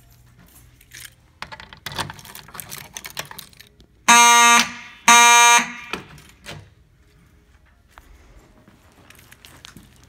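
Wall-mounted fire alarm horn sounding two loud, buzzy blasts about a second apart, during a test of a fire alarm system's signals.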